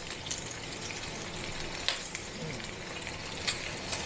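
Pork belly cubes sizzling in a steel pan as their fat renders, a steady frying hiss, with a few sharp clicks as the pieces are turned by hand.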